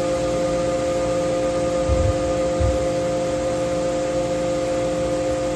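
Miyano BNJ-42SY CNC turning center running at a steady speed: a steady whine made of several tones over a hiss, with a couple of faint low bumps about two seconds in.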